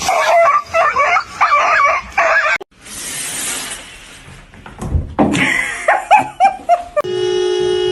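Cats meowing, a run of short wavering cries repeated several times, broken about a third of the way in by a brief hiss-like burst of noise. Near the end a steady held tone sounds for about a second.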